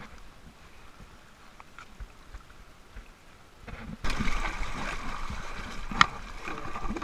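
River water rushing and splashing close to the microphone, starting suddenly about four seconds in after a quiet stretch with a few faint clicks, with one sharp knock about two seconds later.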